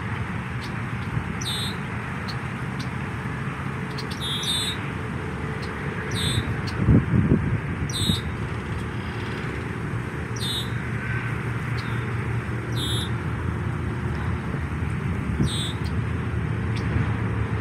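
Canada goose goslings peeping: short, high, falling peeps repeated about once a second. They sit over the steady hum of freeway traffic, with a brief low rumble about seven seconds in.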